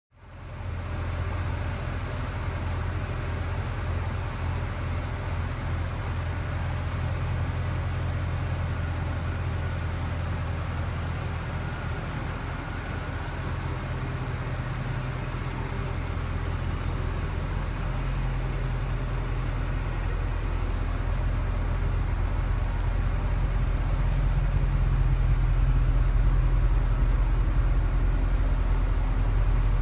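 Mercedes C63 AMG Black Series' naturally aspirated 6.2-litre V8 idling with a steady deep note, growing louder in the second half.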